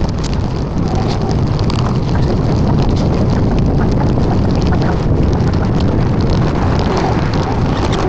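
Wind buffeting the action camera's microphone while cycling, a steady low rumble, with scattered small ticks and rattles from the ride.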